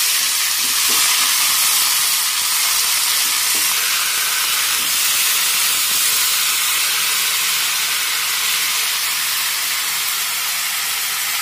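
Chopped poi saag (Malabar spinach) and pumpkin sizzling steadily in hot oil in a metal kadhai while being stirred with a steel spatula.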